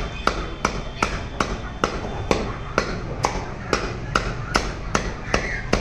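Heavy butcher's knife chopping chicken pieces on a round wooden chopping block, in a steady rhythm of about two to three sharp chops a second.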